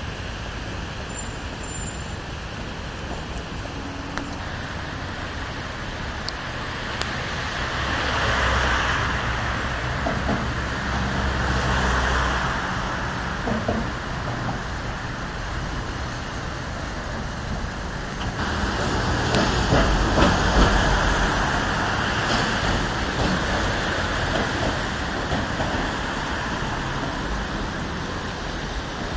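Road traffic: a steady rush of passing vehicles, swelling as individual vehicles go by about eight, twelve and twenty seconds in, the last the loudest.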